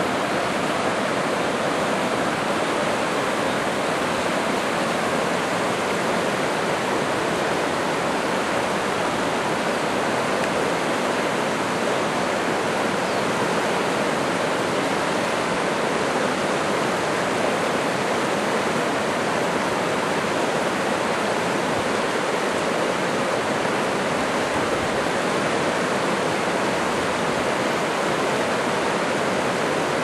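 River rapids rushing steadily: a continuous, even noise of churning whitewater.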